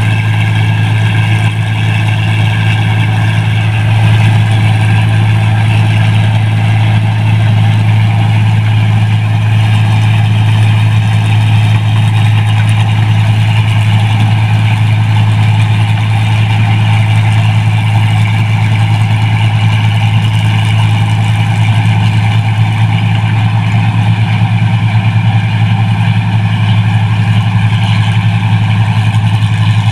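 Tracked rice combine harvester, a '1545' machine, running steadily while cutting and threshing rice: a loud, unbroken engine drone with a strong low hum.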